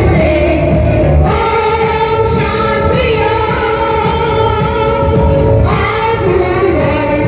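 Women singing a Hindi film song medley over musical accompaniment, with long held notes in the middle.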